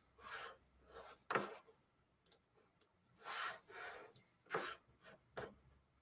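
Faint rustling and rubbing, with a few light clicks, close to the microphone.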